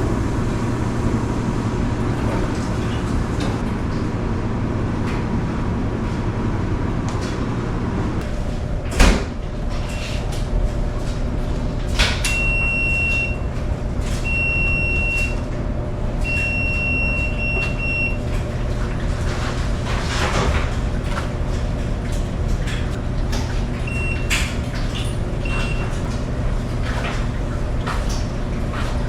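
Coin-laundry washing machines: a steady hum of machines running, a loud thump about nine seconds in as a washer door shuts, then a series of high electronic beeps from a washer's control panel as it is set going.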